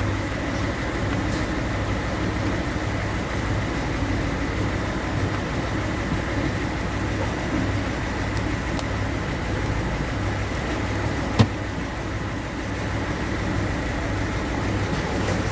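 1.6 HDi common-rail four-cylinder diesel engine idling roughly with a repeating, uneven pulse, the sign of a misfire from a faulty number 3 injector. A single sharp click about eleven seconds in.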